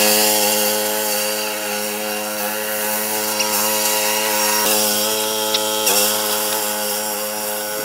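Small petrol engine of a riding lawn mower running steadily at high throttle, a constant engine drone with a hissing noise over it.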